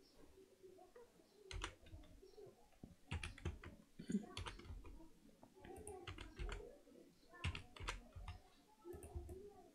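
Faint computer keyboard keystrokes and mouse clicks, scattered irregular taps, a few close together.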